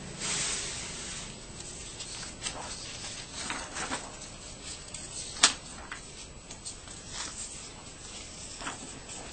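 Sheets of drawing paper being handled and turned over in a stack: a rustle in the first second, then scattered short paper snaps and flicks, the loudest about five and a half seconds in.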